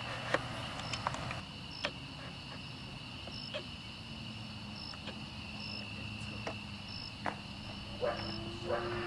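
Crickets chirping steadily, with a few sharp clicks and taps scattered through; the loudest click comes about a third of a second in.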